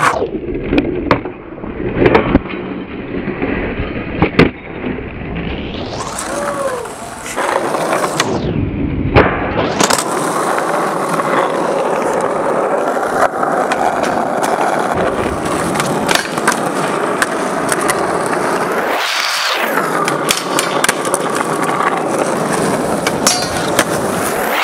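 Skateboard wheels rolling on rough asphalt, broken by sharp clacks of the board popping and landing, several bunched in the first few seconds.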